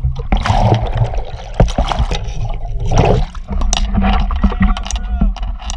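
Water splashing and sloshing in bursts, with sharp knocks and a steady low rumble underneath.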